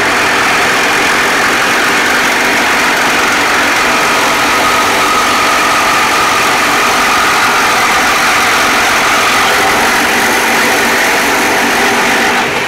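Two Makita cordless reciprocating saws running together and sawing through 304 stainless steel strut channel, giving a loud, steady metal-cutting buzz. One cuts with a Diablo 10 TPI carbide-tipped medium metal blade, the other with a Milwaukee Torch bimetal blade.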